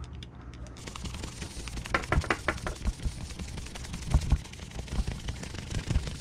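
A paper towel rubbing a shellac and linseed oil finish into a knife handle: a dry scuffing hiss with irregular clicks and scrapes, most of it a second or so in and after.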